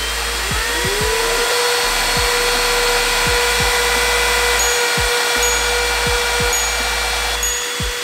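Five handheld cordless car vacuum cleaners (Swiss Military, Agaro, Bergmann, Tusa and 70mai) running together: their motors spin up in a rising whine during the first second or so. They then hold a steady high whine over a hiss of rushing air, and some cut out near the end.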